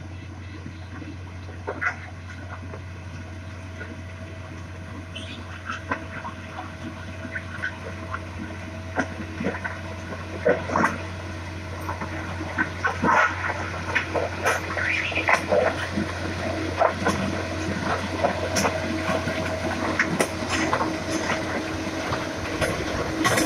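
Plasser & Theurer PBR-400U-RS ballast regulator running with a steady engine hum, its plough pushing the track ballast so the stones crunch and clatter. The rattling grows louder and busier from about eight seconds in.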